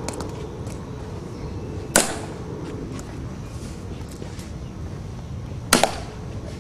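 Sharp slaps of hands striking a ceremonial rifle during a guard's rifle inspection. One comes about two seconds in and a quick double comes near the end, with fainter clicks between.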